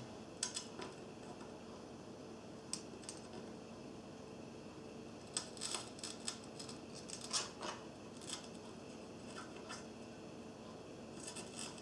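Faint, scattered small clicks and taps from a soldering iron and a silicone wire being handled against a PCB heated bed while the wire is soldered to its pad. The clicks come in a cluster a little after the middle and again near the end.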